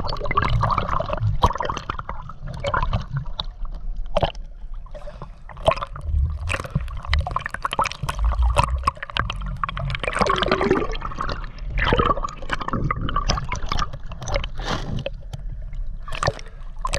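Seawater splashing and gurgling around a swimmer doing sidestroke, in uneven surges with sharp splashes.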